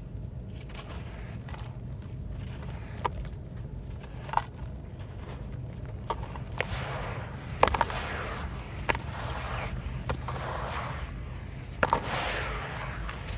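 Lumps of sand cement crumbling apart in water: a gritty, crunching hiss that swells in the second half, broken by scattered sharp cracks and snaps as pieces break off.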